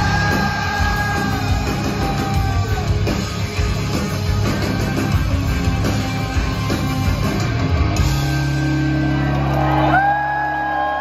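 Live rock band playing loudly in a large hall, with distorted guitars, drums and vocals, heard from the crowd. About eight seconds in the drumming stops and a held chord rings on, as the song comes to its end.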